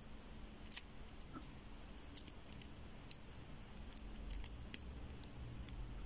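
Faint, sporadic small metallic clicks and taps as a pinning shim and tool are worked into a brass Era half Euro cylinder lock to draw out the core.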